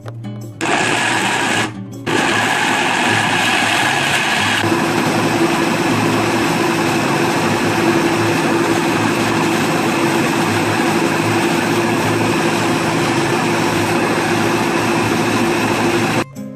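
Countertop blender motor running at speed, puréeing chunks of cooked purple yam. It starts about half a second in, cuts out briefly near two seconds, then runs steadily; about four and a half seconds in the sound shifts to a steadier hum as the chunks break down into a smooth purée, and it stops just before the end.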